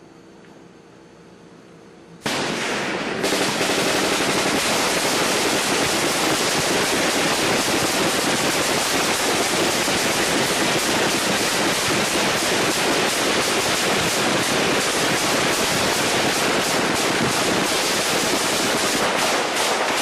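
Rushing, spraying water: a loud steady hiss with dense crackle that cuts in suddenly about two seconds in, after a faint hum.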